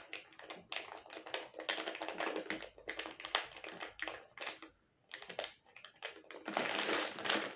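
Pencil writing on paper in quick, irregular scratching strokes. About six and a half seconds in, a plastic packet starts to crinkle.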